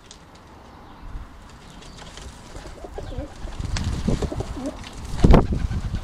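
Feral pigeons fighting: low coos that bend up and down in the second half, then a sudden loud scuffle about five seconds in.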